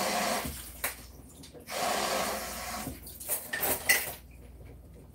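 Kitchen tap running in two spells of about a second each, followed by a few sharp clinks and knocks of kitchen items.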